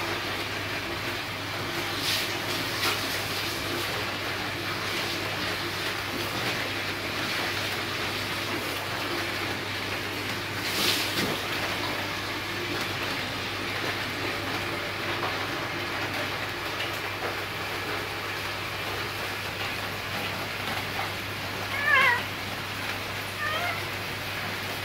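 A cat meows near the end: one short call, the loudest sound here, then a fainter one a second or so later. Both come over a steady background hiss, and there is a sharp click about eleven seconds in.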